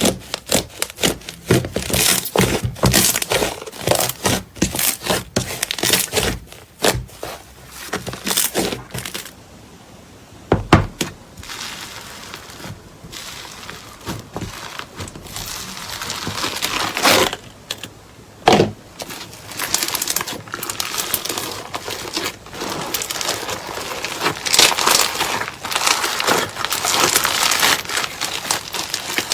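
Slime being handled, making a quick run of sharp clicks and pops, then a quieter stretch broken by two single loud pops, and denser crackling near the end.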